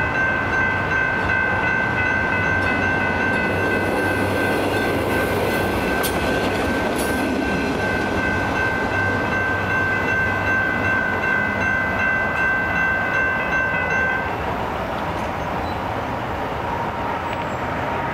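Electronic grade-crossing bell ringing steadily over a constant rumble. The bell stops about fourteen seconds in as the crossing signals deactivate.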